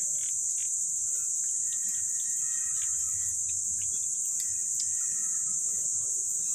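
Steady high-pitched drone of an insect chorus, with faint scattered ticks.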